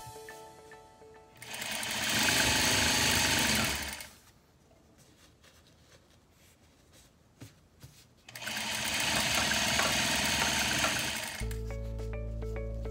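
Electric sewing machine running in two bursts of a few seconds each, with a quiet pause between, stitching a satin fabric band. Background music with repeating notes comes in near the end.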